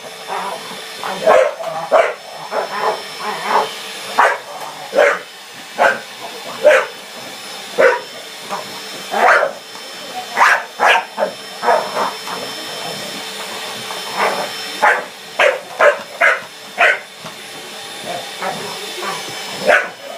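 Staffordshire bull terrier barking over and over in quick irregular runs at a running vacuum cleaner, whose steady motor whine sounds underneath.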